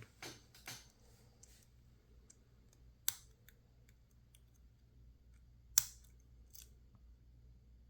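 Lock picks and a tension tool working in a PacLock 410 Pro padlock: scattered sharp metal clicks and ticks, the loudest about three seconds in and again near six seconds.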